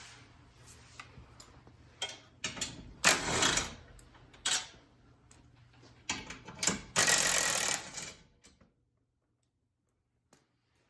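Cordless impact driver hammering in short bursts on the skid plate mounting bolts, two longer rattling bursts with a few short blips and clicks between them, then sudden silence.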